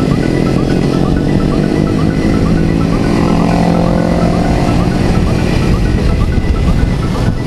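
Motorcycle engine running while being ridden, its pitch dropping near the start and climbing again around the middle, over a steady low rumble of noise.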